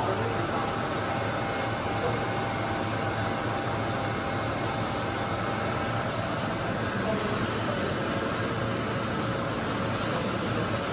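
Correa CF-25 bed-type CNC milling machine running a cut with coolant spraying: a steady mechanical hum and hiss with a few faint steady tones, unchanging throughout.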